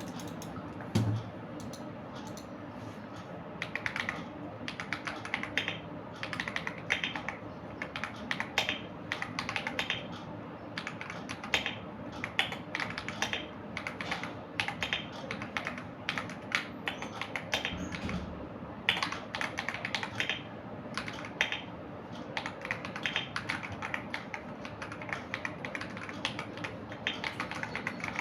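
Typing on a CIY Tester AK84 mechanical keyboard fitted with lubed Akko CS Jelly Purple tactile switches: a continuous, uneven run of keystrokes, with a couple of deeper, heavier thumps.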